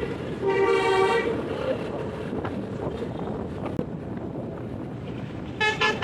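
Multi-tone telolet horn on a Tunggal Jaya bus sounding a held chord for about a second near the start. Steady vehicle and wind noise follows, and just before the end the horn starts again with a quick run of changing notes.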